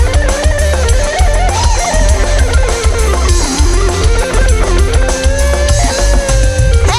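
Loud live band music through a PA: guitar and drums under a wavering lead melody.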